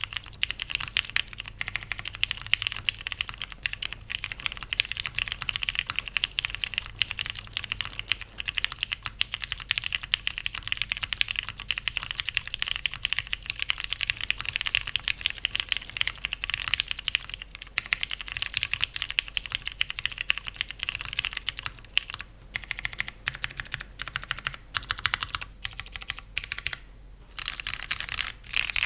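Steady typing on a Daji Ocho Cuatro 2.1 custom mechanical keyboard with lubed, filmed Cherry MX Brown switches in a polycarbonate plate, O-ring mounted with no foam, under GMK keycaps: a dense, continuous run of keystrokes with a couple of brief pauses near the end.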